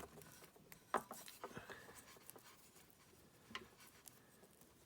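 Faint handling sounds of fine wires and their foil wrap being worked by hand: a few soft clicks and light rubbing over quiet room noise.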